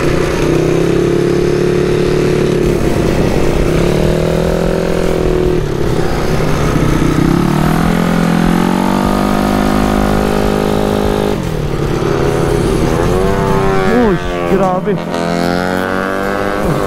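Small motorcycle engine ridden hard around a track, its note climbing and dropping over and over as the throttle opens and closes through the corners, with a steady rush of wind noise.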